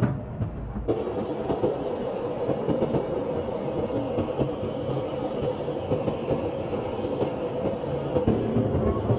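Gas torch burning with a steady, rough rushing noise that cuts in about a second in, its open flame heating a stone.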